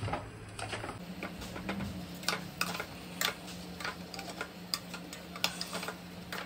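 Spatula stirring rice and beans in a pressure cooker pot, scraping and knocking against the metal in irregular clicks, over a low steady hum that comes in about a second in.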